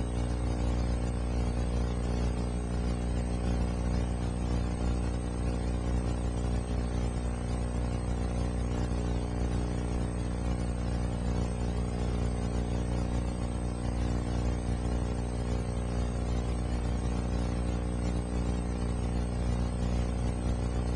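A steady low hum with many overtones, unchanging in pitch and level, which starts abruptly.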